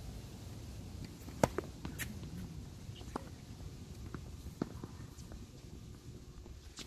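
Tennis ball bouncing and being tapped on the hard court between points: a few sharp, irregularly spaced knocks, the loudest about a second and a half in, over a low outdoor rumble.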